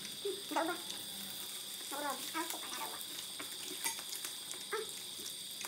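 Hot dogs and sausages sizzling on an electric grill pan, with a few sharp clicks of chopsticks against the grill and several short voice-like calls, near the start and around two seconds in.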